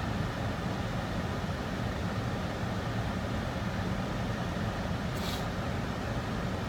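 Steady low rumble of a car's cabin on the road, with a brief hiss about five seconds in.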